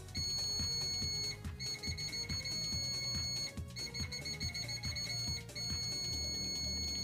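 ANNMETER AN-42B multimeter's continuity beeper sounding a steady high-pitched tone as its test leads are shorted together, in four long beeps broken by short gaps. Background music with a steady beat plays underneath.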